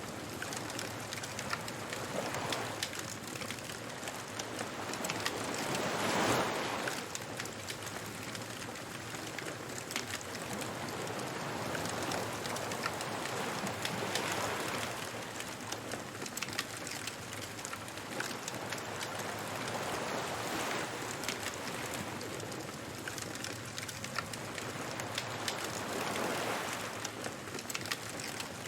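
Beach bonfire ambience: a fire crackling steadily over a constant hiss of surf, with waves swelling and washing in about every six to eight seconds.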